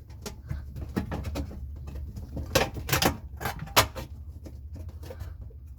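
Plastic dishwasher filter being fitted back into the bottom of the tub: a string of sharp plastic clicks and knocks, the loudest three in the middle, as it is pushed down to sit flush and snap into place.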